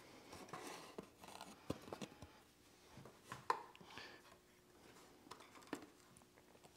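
Faint rustling and a few light taps of a cardboard template being handled and pressed against a steel frame rail to check its fit.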